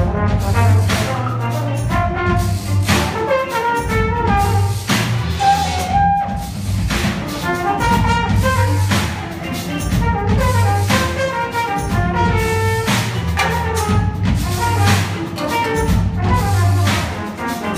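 A jazz-fusion band and full orchestra playing live: a drum kit keeping a steady beat under a deep, repeating bass line, with brass and other instruments carrying the melody above.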